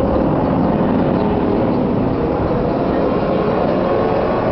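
Tatra KT4D tram rolling past at close range: a loud, steady rumble of wheels and running gear on the rails, with a faint hum underneath.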